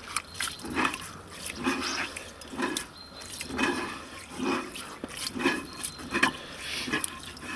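A hand kneading and swishing sushi rice in water in a cast-iron Dutch oven to wash it, a wet squishing stroke about once a second.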